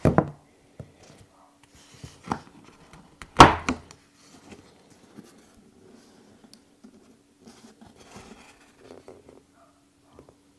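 A cigar box handled on a glass-topped table: a sharp knock as it is set down, then louder knocks about three and a half seconds in as the lid is opened. Soft rustling and handling of the box and its paper follow.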